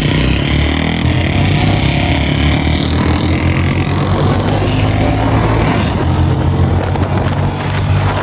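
Royal Enfield Bullet 350 single-cylinder motorcycle engines running with a steady, rapid exhaust beat, the pitch dipping briefly about a second in.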